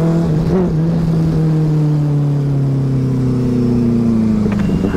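Motorcycle engine running under way, its pitch sinking slowly as the bike eases off. About four and a half seconds in it drops away with a couple of clicks and then picks up again, with wind rumble underneath.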